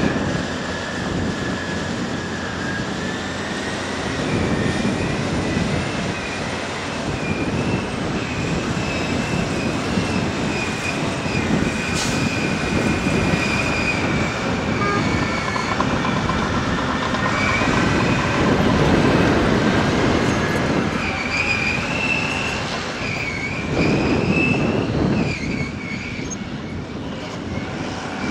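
Heavy earthmoving machinery at work: diesel engines running, with high-pitched metallic squealing and clanking over them. The engine noise swells twice in the second half.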